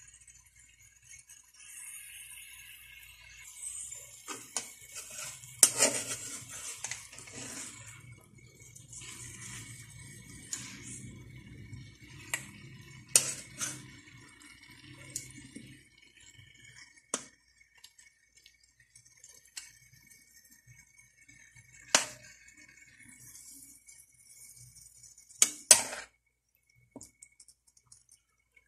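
A metal ladle scraping and clinking against a steel wok as chicken pieces and onions are stirred. There are irregular sharp clinks, several of them loud, with a faint hiss between them.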